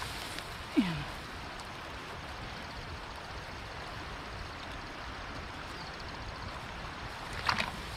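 Steady rush of flowing stream water, with one short falling voice-like sound about a second in.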